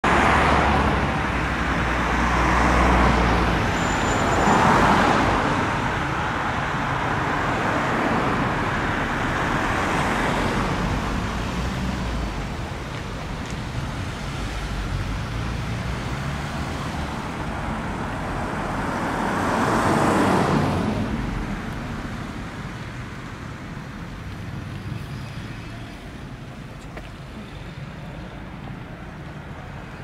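Road traffic: a steady wash of passing vehicles, several of them swelling up and fading away in turn, the loudest about 5 and 20 seconds in, growing quieter toward the end.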